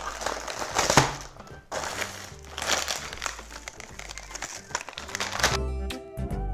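Plastic Oreo cookie package crinkling in bursts as it is picked up and handled, over background music. Near the end the crinkling stops and the music plays on alone.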